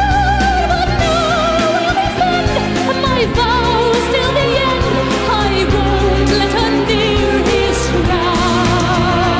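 Classical-crossover soprano singing sustained notes with wide vibrato over instrumental backing with a steady low bass.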